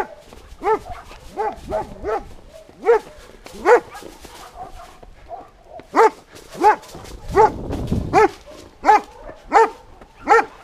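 A dog barking over and over in short, sharp barks, roughly one every second, with a brief pause about halfway through.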